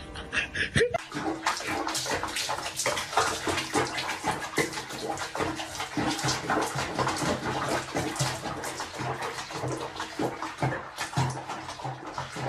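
Bathwater sloshing and splashing in a tub around a cat being bathed, a continuous run of many small quick splashes, starting about a second in.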